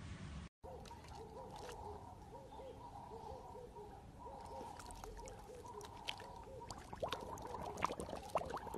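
Husky lapping pool water, with sharp little splashes and laps clustered near the end, over a steady run of short rising-and-falling calls repeating a few times a second.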